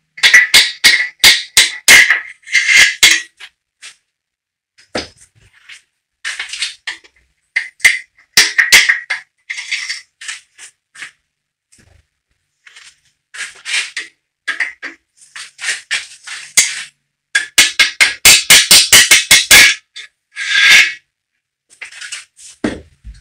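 Nylon-headed hammer tapping the main bearing caps of a V8 engine block to free them from their tight seats in the block, in quick runs of sharp ringing knocks, with metal clinks as the loosened caps are handled and set down.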